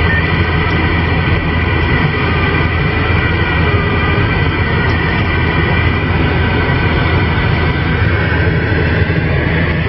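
Steady drone of a lorry's engine and road noise heard inside the cab while driving.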